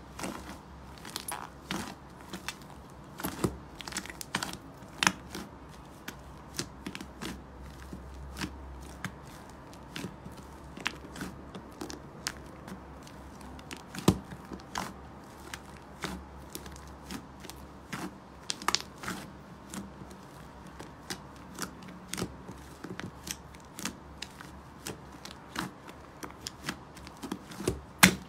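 White fluffy slime with small foam beads being pulled apart, kneaded and pressed by hand in a plastic tub, giving an irregular run of sharp crackles and pops. The loudest pops come about halfway through and at the very end.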